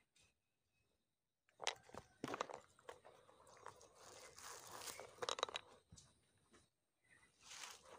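Crunching and rustling of dry leaf litter and undergrowth, in short irregular crackly bursts that start about a second and a half in.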